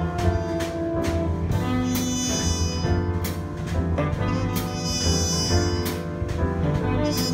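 Small jazz group playing live: held horn notes over piano, walking double bass and drums, with regular cymbal strokes.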